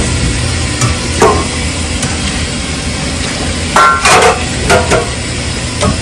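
Tap water running into a stainless steel sink while a wok is scrubbed with a steel scouring pad, with scraping and knocks of the pan against the sink. A louder metallic clank with a brief ring comes about four seconds in.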